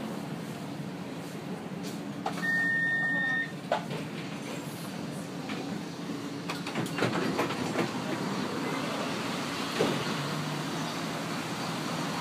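Bombardier Flexity 2 light-rail tram running along its track, heard from the driver's cab: a steady rumble with scattered clicks and knocks, and a short tone lasting about a second, a couple of seconds in.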